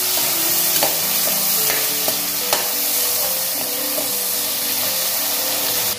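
Sliced onions and tomatoes sizzling steadily in hot oil as they are stirred in an aluminium pressure cooker with a perforated metal ladle. A few short clicks are heard as the ladle knocks and scrapes against the pot.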